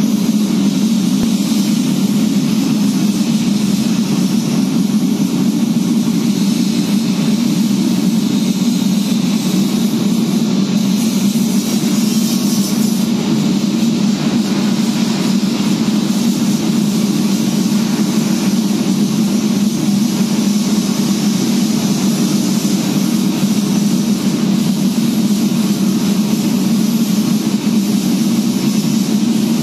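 A steady mechanical drone with a hiss above it, unchanging throughout.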